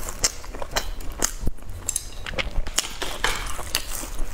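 A person chewing a pan-fried pork bun close to a clip-on microphone: irregular wet clicks and small crunches, several a second.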